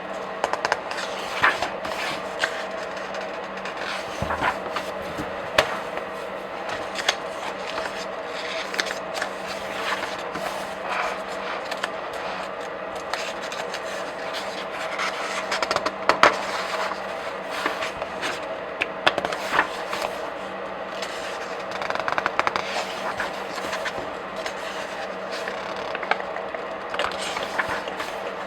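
Pages of comic books and graphic novels being flipped and turned by hand: paper rustling and sliding, with irregular sharp snaps and crackles as the pages turn.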